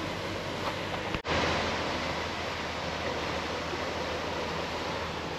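Steady rush of wind and water noise from a boat under way, heard at the bow. About a second in, the sound drops out briefly at an edit, and the rush comes back a little louder.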